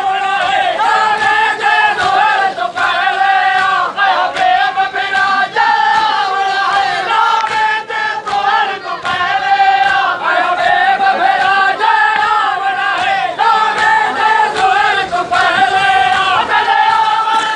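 A crowd of men chanting a noha, a Shia lament, in unison, one sung phrase after another, with repeated sharp slaps of matam chest-beating.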